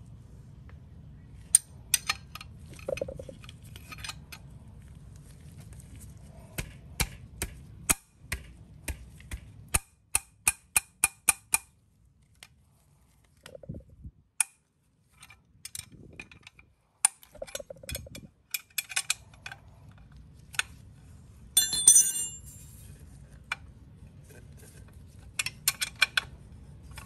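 Metal wrench working a bolt on a motorcycle engine: a series of sharp metallic clicks and clinks, with a quick run of about seven clicks near the middle and a dense cluster later on, over a faint low hum.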